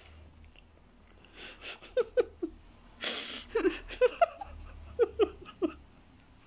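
A woman laughing under her breath: short giggling bursts in small clusters, with a breathy exhale of laughter about three seconds in.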